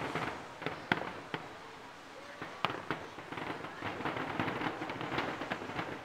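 Aerial firework shells bursting at a distance: a string of sharp pops, the loudest about a second in, with a crackling patter in the middle.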